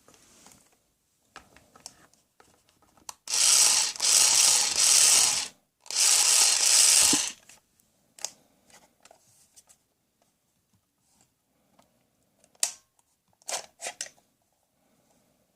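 Plastic toy tool mechanism ratcheting in two long bursts, about two and a half seconds and then a second long, with scattered clicks and taps before and after.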